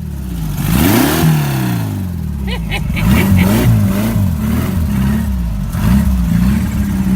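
Off-road sand rail's engine revving hard, its pitch climbing and dropping again and again as the throttle is worked.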